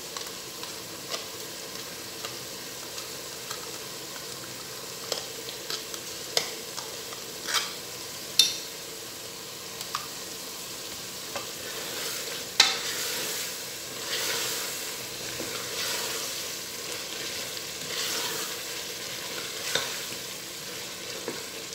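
Black chickpeas and masala sizzling in oil in a pressure cooker, with scattered clicks and knocks as yogurt is spooned in. About halfway through, a sharp knock, then louder sizzling and scraping as a wooden spoon stirs the yogurt into the frying chickpeas.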